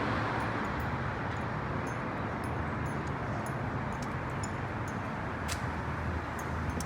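A steady engine running with a broad rushing noise over a low, even hum.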